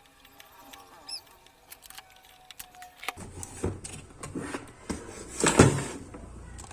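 Clicks and knocks of tool work while desoldering an IC from an amplifier circuit board, over a low hum that sets in about three seconds in. The loudest is a short, sharp snap about five and a half seconds in.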